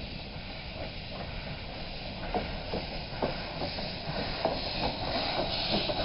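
A 4-4-0 steam locomotive drawing near at low speed, steam hissing from its open cylinder cocks. A quick regular beat, about four or five strokes a second, sets in about two seconds in, and the sound grows louder as the engine nears.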